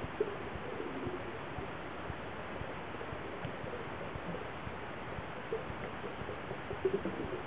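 Steady, muffled water noise picked up underwater in a pool, with a few faint short blips, the clearest near the start and near the end.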